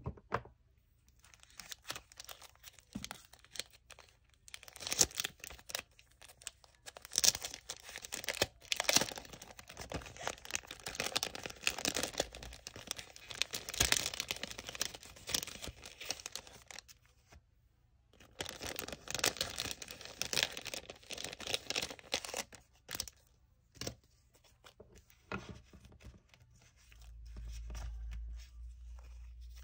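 Clear plastic packaging of a sticker pack crinkling and rustling as it is opened and the stickers are pulled out, in two long stretches with a short pause between, then lighter handling near the end.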